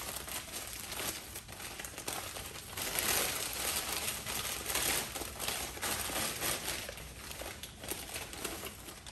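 Newspaper crinkling and crackling as it is peeled and crumpled away from a wrapped camera: a dense, continuous run of small crackles, loudest in the middle.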